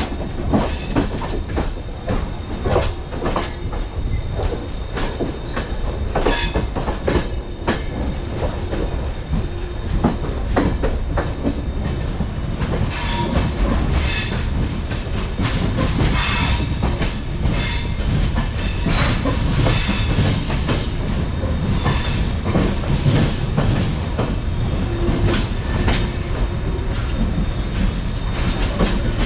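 Indian Railways passenger train running on the track: a steady rumble of the coaches with an irregular clatter of wheel clicks over the rail joints, as the train comes into Thiruvananthapuram Central.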